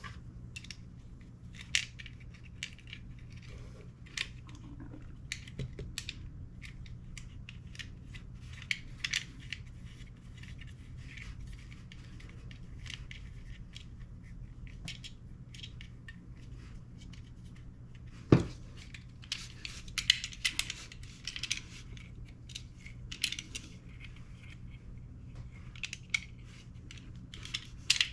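Small metal parts of an airsoft gas blowback rifle being handled and fitted by hand: scattered light clicks and clinks, with one sharp knock about two-thirds of the way through and a quick run of clicks right after it. A steady low hum underneath.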